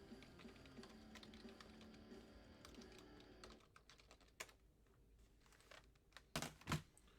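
Quiet typing on a computer keyboard: quick, scattered key clicks for the first few seconds, then sparser, with a couple of louder clicks near the end.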